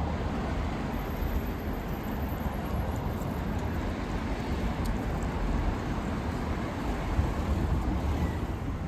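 Steady city street ambience: an even, low rumble with no distinct events.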